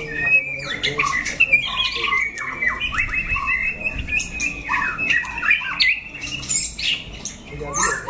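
Several caged white-rumped shamas and other songbirds singing and calling at once, a steady stream of quick overlapping whistled notes with one long held note running under them.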